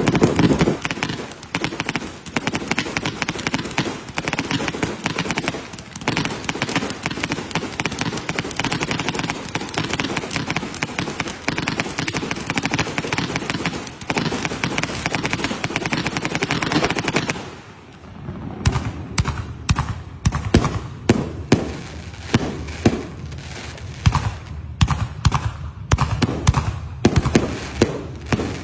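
A fireworks barrage going off. For about the first two-thirds it is a dense, unbroken crackle of rapid pops, then it breaks up into separate sharp bangs, a few a second.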